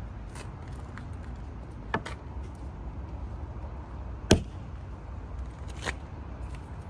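Suction-cup glass holder being set and locked onto a freshly installed quarter window glass. It gives a few sharp clicks, the loudest about four seconds in, over a steady low rumble.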